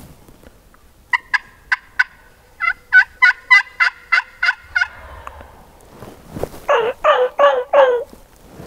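Turkeys calling in a series of short, separate notes: four sharp notes about a second in, a quicker run of about nine notes, then four louder, longer notes that drop in pitch near the end.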